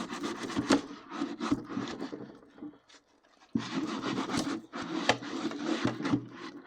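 Quick rubbing and scraping strokes of wiping against the inside wall of a toaster oven with softened baked-on grease. The strokes stop for about a second in the middle, then start again.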